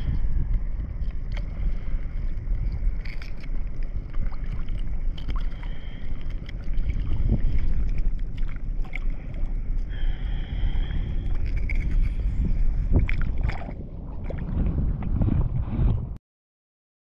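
Wind buffeting the microphone over choppy seawater, with water lapping and a few small clicks. The sound cuts out suddenly near the end.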